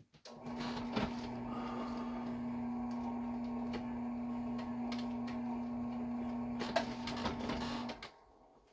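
Electric drill press motor running steadily with a constant hum, spinning a roll-crimp tool to close the end of a reloaded shotshell, with a few light clicks and scrapes. It starts about half a second in and stops about eight seconds in.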